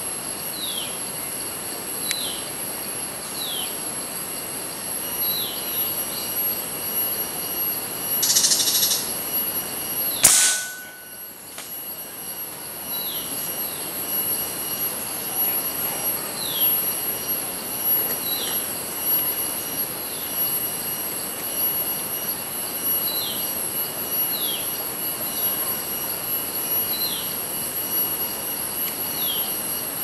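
Tropical forest ambience: insects drone steadily at several high pitches while a bird repeats a short falling call every second or two. A brief rushing hiss comes about eight seconds in, and a single sharp crack, the loudest sound, about ten seconds in.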